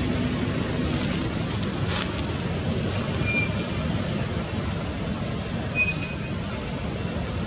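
Steady outdoor background rumble and hiss, with two short high chirps, one about three seconds in and one near six seconds.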